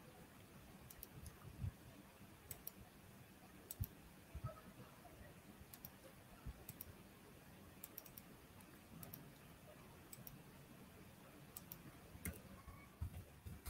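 Faint computer mouse clicks, many in quick pairs, spaced irregularly over near silence, with a few soft low thumps.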